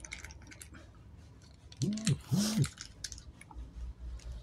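Small clicks and crackles of a plastic Rinso detergent sachet being emptied into a plastic dipper of water, with light splashing as a hand stirs the water. About two seconds in there are two short, low, humming sounds, the loudest thing here.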